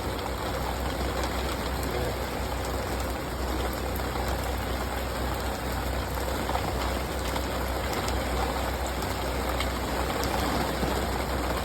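Steady rain falling, with water running off an awning into a makeshift collection funnel.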